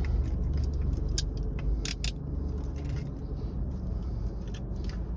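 A few scattered small metallic clicks and rattles from a pair of handcuffs being handled, over a steady low hum.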